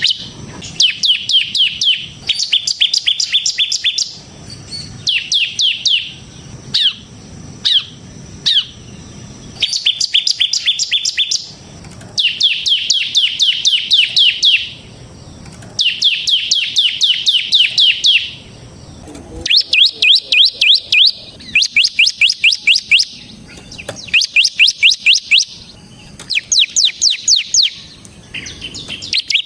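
Bar-winged prinia (ciblek) singing in the vigorous rapid 'ngebren' style: bouts of fast, sharp, high chirps, about eight to ten notes a second, each bout lasting one to three seconds and repeated after short pauses.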